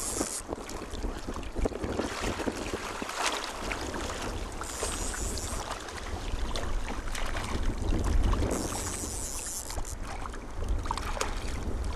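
Wind buffeting the microphone with a low rumble, over small waves lapping in the shallows; a stronger gust comes about two-thirds of the way in.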